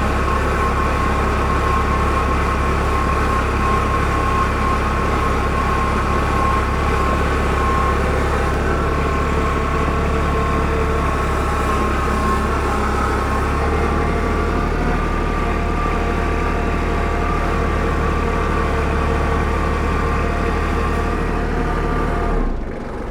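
A heavy engine running steadily, with a deep rumble and a steady whine over it. It drops off sharply near the end.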